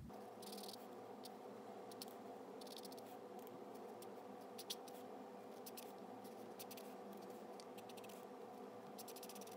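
Faint scratchy strokes of an Ohuhu brush-tip alcohol marker on paper, short strokes in little clusters, over a steady faint hum.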